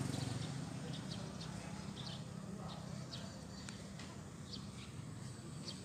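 A bird chirping in short, high notes at uneven intervals, over a low traffic rumble that fades away during the first few seconds.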